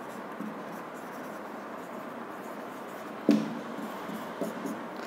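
Marker pen writing on a whiteboard, with a short louder sound a little over three seconds in.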